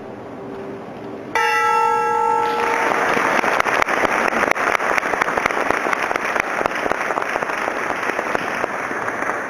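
The Tokyo Stock Exchange's large ceremonial bell struck once, ringing for about a second and a half as the first of the five ceremonial strikes. Applause breaks out as the ring fades and carries on.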